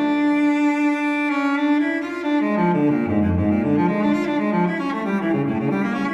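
Slow solo cello melody of long, held bowed notes.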